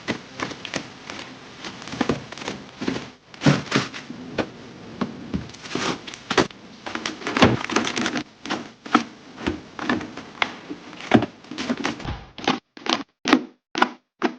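Irregular clicks, taps and knocks of food containers and packaging being handled, set down and stacked while a freezer is filled.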